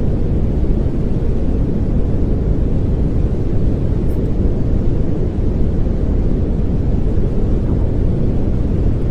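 Steady pink noise: an even, unbroken hiss weighted toward the low end, with a deep rumble and little treble.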